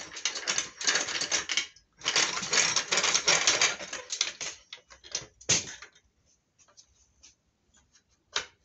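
Handling noise on a phone's microphone: dense rustling and rapid clicking while the phone is turned over in the hand, thinning to a few scattered clicks after about four and a half seconds, with one more short rub near the end.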